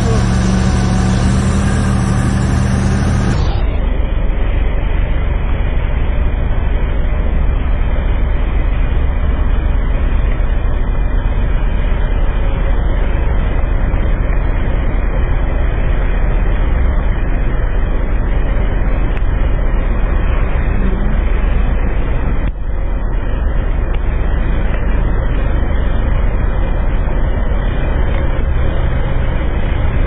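Amphibious vehicle's engine running steadily as it drives through floodwater. About three and a half seconds in, the sound cuts to a duller, steady rumble.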